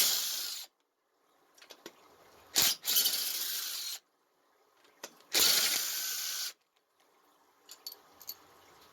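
Power tool run in three short bursts of about a second each, with small clicks between, backing out cylinder head bolts.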